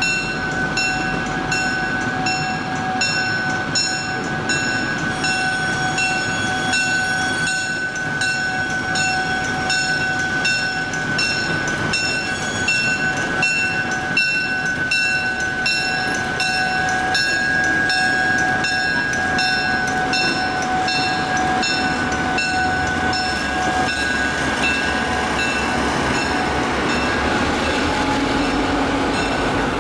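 Illinois Terminal diesel locomotive passing with its bell ringing steadily, about two strikes a second. Near the end the bell fades and the rumble of the passenger coaches rolling over the rails takes over.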